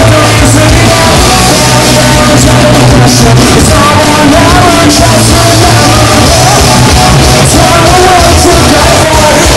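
Rock band playing live through a concert PA, heard from the crowd: electric guitars, bass and drums with cymbal crashes under sung vocals, very loud throughout.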